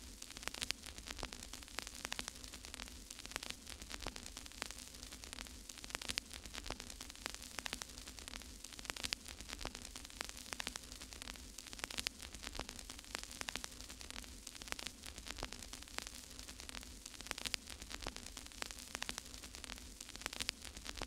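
Steady hiss of static, dense with irregular crackles and clicks, over a low steady hum.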